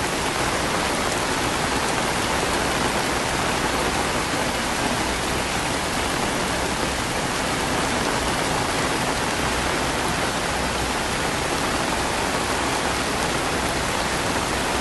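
Rain falling steadily as a dense, even hiss with no break.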